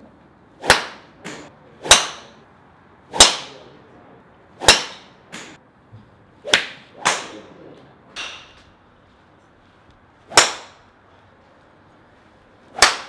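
Golf drivers striking balls in driving-range bays: about a dozen sharp cracks at uneven intervals, each with a short echo.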